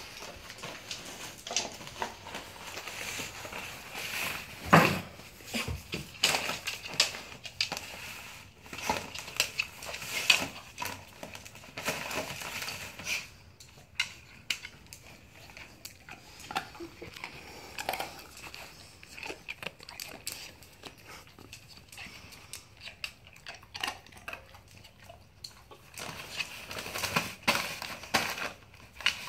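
Labrador retriever sniffing, nosing and pawing at a gift-wrapped parcel, the wrapping crinkling and rustling in irregular bursts, with a louder thump about five seconds in.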